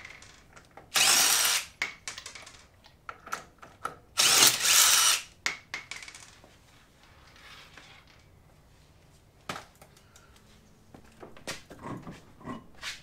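Cordless impact wrench spinning off lug nuts that are already broken loose, in two short bursts, the second about a second long. A few clicks and knocks near the end as the wheel is handled.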